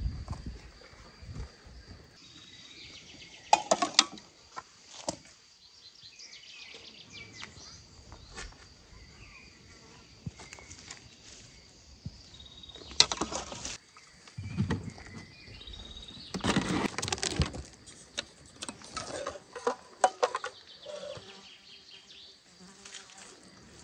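Insects buzzing steadily outdoors while oil trickles from a small steel cup onto a large whole fish in a wire-mesh grill basket. A few short clatters and knocks of handling stand out, a few seconds in, about halfway through, and again a few seconds later.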